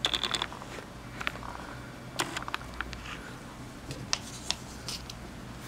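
A fast clicking rattle for about the first half second, then scattered light taps and crinkly rustles as a red cat toy is handled over a sheet of paper.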